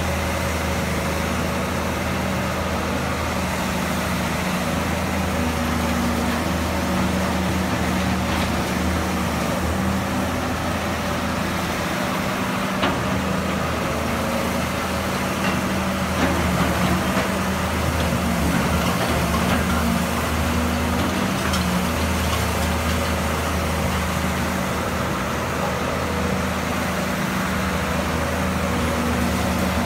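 Caterpillar 320B excavator's diesel engine running steadily under load as the machine digs through rubble and swings its bucket, with a few short knocks and scrapes from the bucket and debris near the middle.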